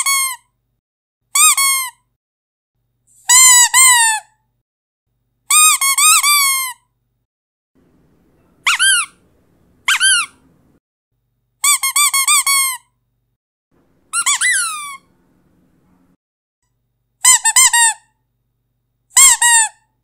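Rubber squeaky dog toy squeezed again and again: about ten bursts of high squeaks, each burst one to four quick squeaks with short gaps between.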